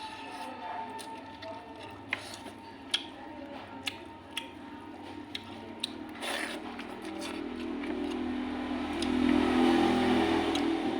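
Close-miked eating sounds: chewing with small sharp clicks of mouth and utensils. In the second half a low rumble swells and then fades.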